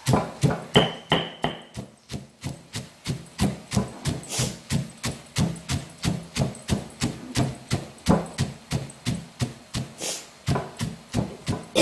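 Stone pestle pounding roasted peanuts in a stone mortar, a steady run of dull thuds about four a second.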